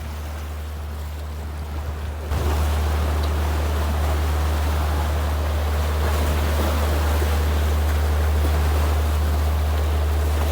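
Boat engine's steady low drone, with rushing water and wind noise on the microphone that grow louder about two seconds in.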